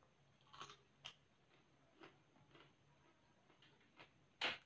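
Crisp, quiet crunching of raw cucumber being bitten and chewed, a few scattered sharp crunches with a louder sharp click near the end.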